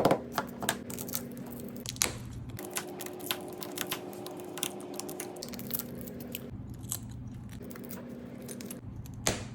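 Shattered glass on the back of an iPhone 11 being tapped and crunched loose: a scatter of small sharp clicks and crunches over a steady low hum.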